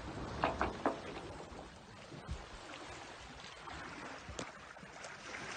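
Water swishing and trickling along the hull of a 45-foot monohull sailboat in light wind, with a few small splashes in the first second.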